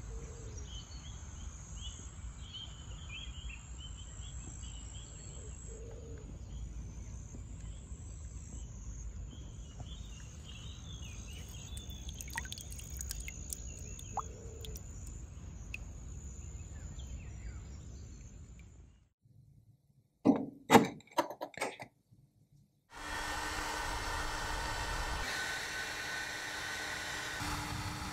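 Outdoor ambience by a lake: wind rumble with birds chirping and a high, steady trill. About twenty seconds in this gives way to a few sharp clicks, then a steady mechanical hum with a droning tone.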